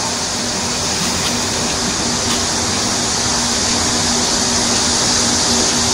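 Steady whirring hiss with an even low hum from a running machine.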